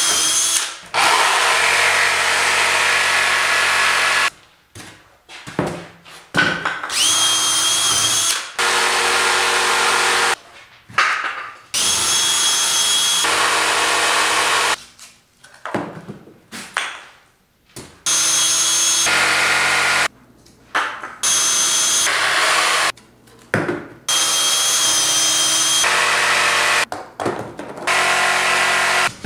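Power tools working expanded PVC sheet: a jigsaw cutting out letter shapes and a DeWalt cordless drill/driver boring holes through them. The tools run in bursts of a few seconds each with short pauses between, and a high motor whine sounds over the rough cutting noise.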